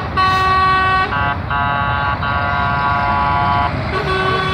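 Vehicle horns sounding in long held blasts, one after another at different pitches: a blast of about a second, a longer one of about two and a half seconds, and a short one near the end, over a steady low traffic rumble.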